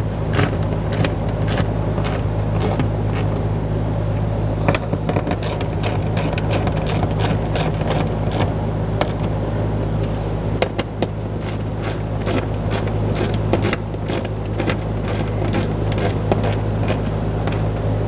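Ratchet clicking in quick runs as the nuts on a fuel pump access cover are tightened, over a steady low hum.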